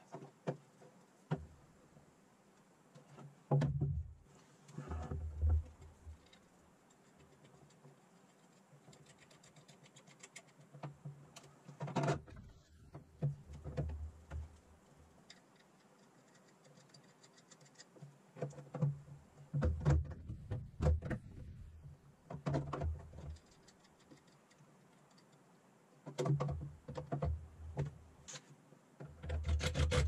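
Irregular bursts of light clicks, knocks and rubbing with dull thumps: a Bimmerworld tunnel-mount gear shifter and its lever being handled and shifted into position on the car's transmission tunnel.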